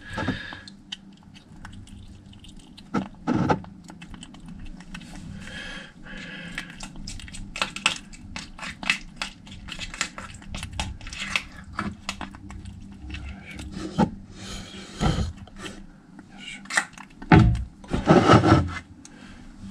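Kitten eating soft pâté-type cat food from a plastic bowl: a long run of small wet chewing and smacking clicks, with a few louder knocks, the loudest near the end.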